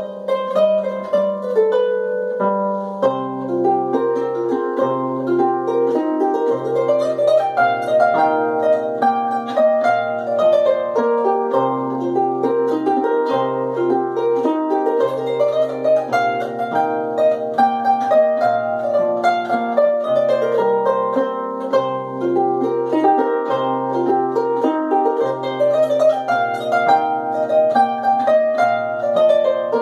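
Solo harp playing a polska dance tune: a melody plucked with the right hand over a bass line of steady, evenly spaced low notes, which comes in about three seconds in.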